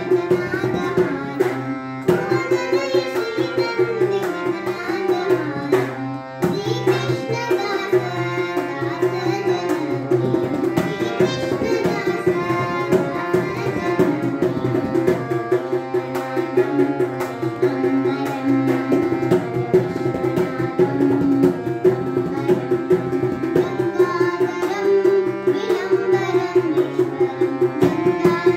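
Shiva bhajan with tabla keeping a steady rhythm under a held drone and a melody.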